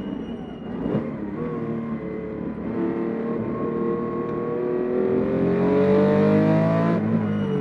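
The air-cooled flat-six of a 1967 Porsche 911S race car, heard from inside the cockpit under hard acceleration. Its pitch dips about a second in, climbs steadily for several seconds, then drops sharply near the end.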